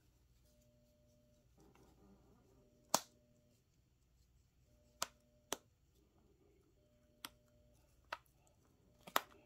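Sharp, separate taps and clicks, about seven of them spaced irregularly, from a container of DTF adhesive powder being handled and tapped while the powder is spread over a printed transfer film.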